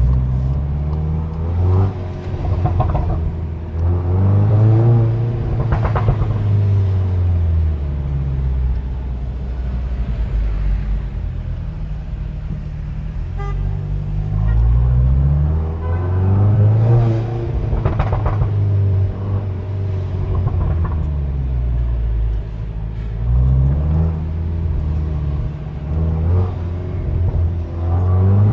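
SEAT Leon Cupra engine revving up and falling back several times, its pitch rising and dropping in long sweeps.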